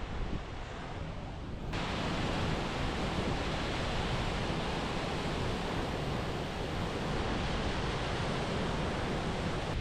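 Steady rushing of water from a mountain creek or waterfall. It turns abruptly louder and brighter a little under two seconds in.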